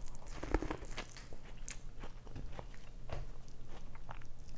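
A person chewing and biting food close to the microphone, with irregular wet mouth clicks and small crunches.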